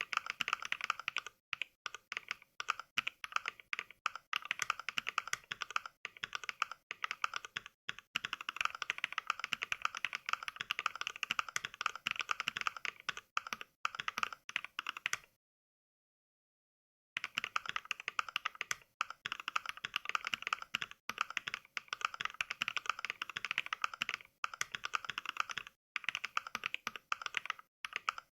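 Fast continuous typing heard as Mechvibes' simulated NK Cream mechanical-switch clicks, one sample per keystroke. The typing stops for about two seconds of dead silence midway, then carries on at the same pace.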